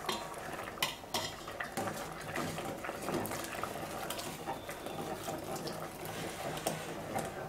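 Steel ladle stirring a simmering pot of green gram and coconut milk, knocking and scraping against the stainless steel pot in scattered light clinks.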